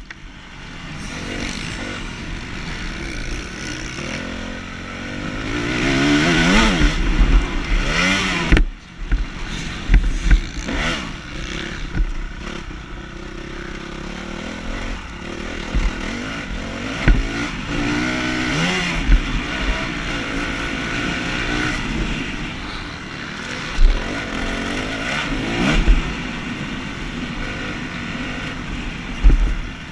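Dirt bike engine heard from on board, revving up and falling back again and again as the rider works the throttle around a motocross track. A few sharp thumps cut through, the loudest about nine seconds in and again near the three-quarter mark.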